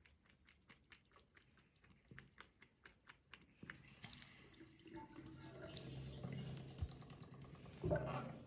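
A cat lapping water from a thin trickle running from a bathroom tap: a quick run of faint wet licking clicks, about four or five a second. About four seconds in, the tap is opened further and running water splashes into the ceramic basin, growing louder. A louder knock comes near the end as the tap is handled.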